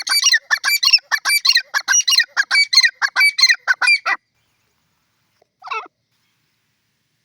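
Grey francolin (dakhni teetar) calling: a loud, fast run of harsh repeated notes, about four or five a second, that stops about four seconds in, then a single short call a moment later.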